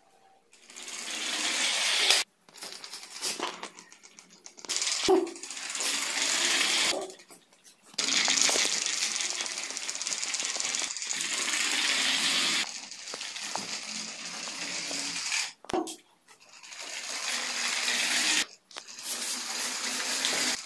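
Small DC motor of a homemade toy running at high speed, a rattly plastic buzz that cuts out and starts again several times.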